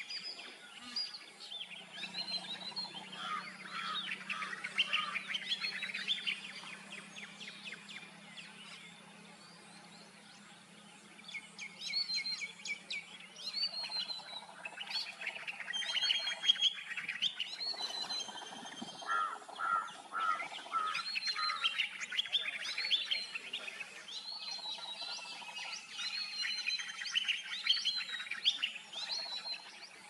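Many birds chirping and calling at once, short high notes overlapping one another, with a quieter lull about a third of the way through. A faint low steady hum sits beneath the calls for the first two-thirds.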